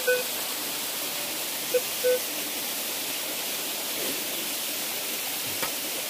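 Steady rushing of a small waterfall, with two short beeps from a metal detector about two seconds in, signalling a metal target in the ground.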